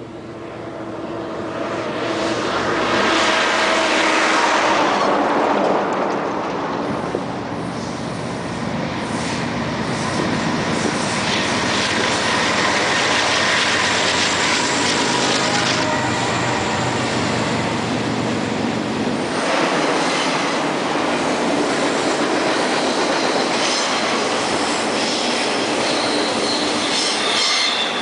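BNSF freight train passing close by: the diesel locomotives' engines grow louder over the first few seconds, then the double-stack container cars roll past with a steady rush of wheel and rail noise. Wheels squeal at times as the cars take the curve.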